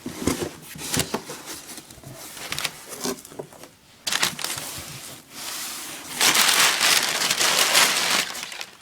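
Plastic packaging crinkling and rustling as it is handled, with scattered clicks and knocks, densest and loudest for about two seconds near the end.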